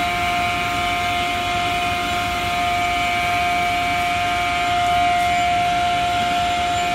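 Steady whining drone of factory machinery: one constant mid-pitched hum with several fainter higher tones above it.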